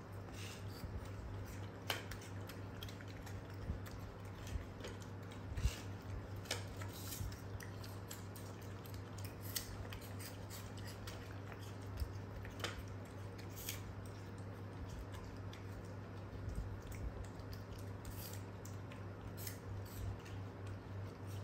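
Young macaques biting and chewing apple slices: scattered small crunches and clicks at an uneven pace, over a steady low hum.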